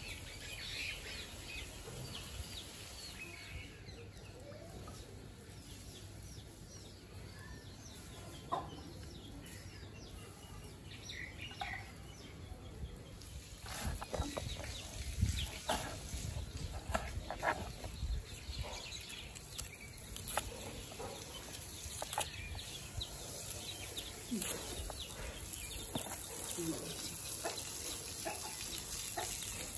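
Chickens clucking, with a kitchen knife chopping onion on a cutting board: a run of sharp taps from about halfway through.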